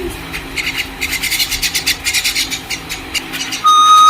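Rapid faint scratching and clicking, then, about three and a half seconds in, a loud steady whistle that starts to bend upward.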